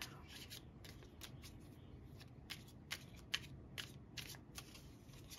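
A deck of tarot cards being shuffled by hand: a faint run of irregular soft clicks and snaps as the cards slide and tap together.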